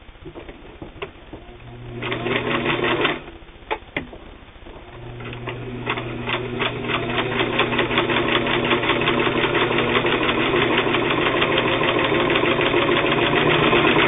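Singer 328K zigzag sewing machine stitching through eight layers of heavy denim without trouble. After a few clicks, the motor runs briefly about two seconds in, stops, then starts again about five seconds in and runs steadily, the needle's stitch rhythm getting louder and quicker.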